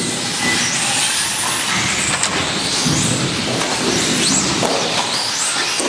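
Several 1:18-scale electric RC racing cars running together: high-pitched motor whines rising and falling with throttle over a steady hiss.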